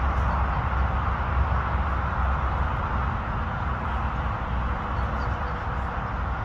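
Steady outdoor background noise: a low, unsteady rumble under an even hiss, with no distinct events.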